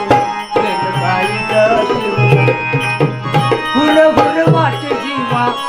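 Instrumental interlude of a Marathi folk song: an electronic keyboard plays the melody over a steady rhythm of dholki drum strokes, with small brass hand cymbals keeping time.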